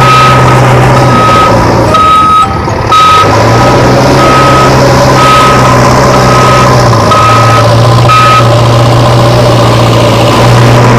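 A vehicle reversing alarm beeping steadily, a little under twice a second, over a continuous engine drone, with a brief drop-out about two and a half seconds in.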